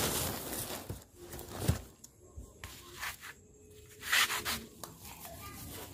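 Rubbing and scuffing handling noise as the phone is carried while walking, with a dull knock just under two seconds in and a brief scrape a little after four seconds.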